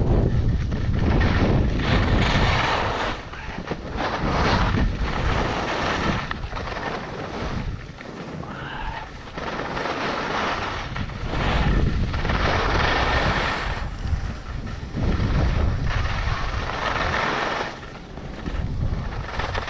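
Skis scraping and carving on snow through a run of turns, a rush of noise that swells and fades every second or two, with wind buffeting the microphone.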